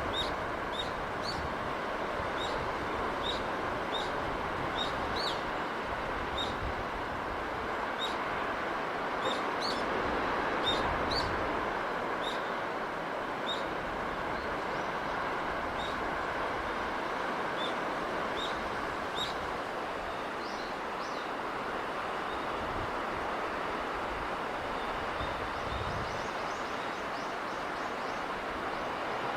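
Steady rushing sea breeze with a small bird chirping repeatedly over it, about once a second, the chirps thinning out after about twenty seconds.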